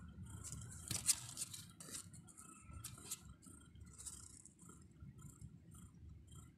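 Newborn kittens suckling at their mother cat: faint wet smacking and clicking noises, with sharper clicks about a second and three seconds in, and a quicker run of soft ticks near the end.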